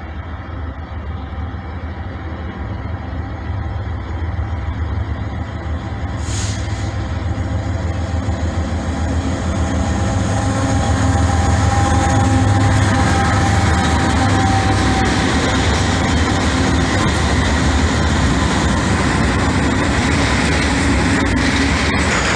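A BNSF doublestack intermodal train passes at speed. The deep drone of its several diesel-electric locomotives grows steadily louder as it approaches and is loudest as the locomotives go by about halfway through. The container cars then follow, rolling steadily over the rails.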